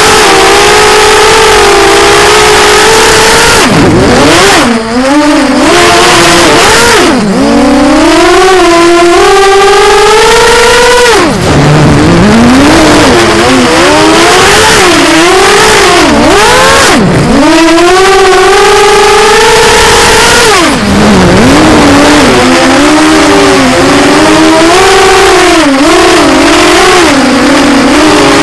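Motor and propeller of a radio-controlled park-flyer model, very close and loud. It whines continuously, its pitch rising and falling with the throttle, and drops sharply several times before climbing again.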